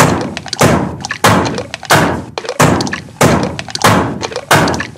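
Cartoon smash sound effect of a head being bashed into a bathroom mirror, a heavy thud repeated eight times at an even pace, about three every two seconds, each one trailing off.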